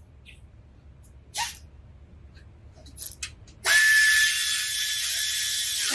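Pneumatic air ratchet running for about two seconds, a steady whine over loud air hiss, as it drives in a lower splash-shield bolt. A few light clicks come before it.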